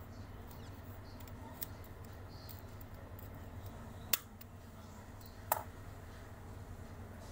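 A few short, sharp clicks over a faint steady low hum, the two loudest about four and five and a half seconds in.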